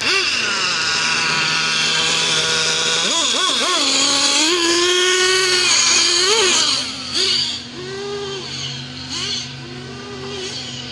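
A 1/8-scale Losi 8ight-T 3.0 RC truggy's nitro engine being throttled, its high-pitched note rising and falling over and over with each blip of the throttle. It is loudest over the first six or seven seconds, then drops off as the truck moves away.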